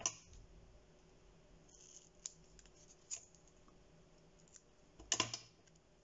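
Scissors cutting foam spacer tape into small pieces: a few faint single snips, then a louder cluster of snips about five seconds in.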